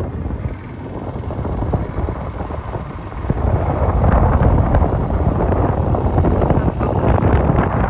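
Wind buffeting the microphone and the low rumble of a vehicle on the move, growing louder about three seconds in.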